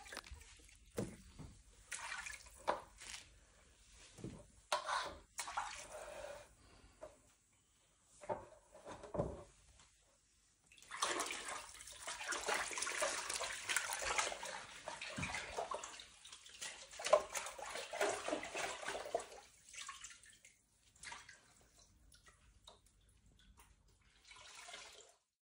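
Water splashing and sloshing in a basin as wet, plucked chickens are handled. It comes in irregular short bursts, with a longer stretch of continuous splashing about halfway through.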